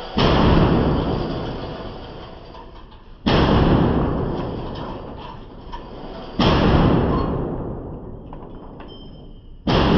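Bear Creek Arsenal AR-15 with a 10.5-inch barrel firing 5.56 rounds, four single shots about three seconds apart. Each shot is a sharp crack followed by a long echoing decay off the walls of an indoor range.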